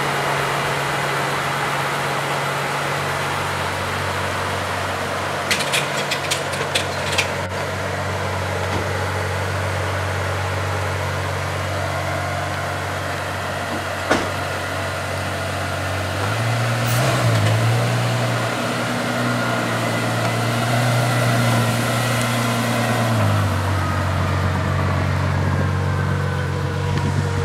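Ferrari F12berlinetta's V12 engine idling steadily, with a run of light clicks about six seconds in and a single sharp knock about fourteen seconds in. Past the middle the engine note grows louder and a little higher for about seven seconds, then settles back as the car rolls away.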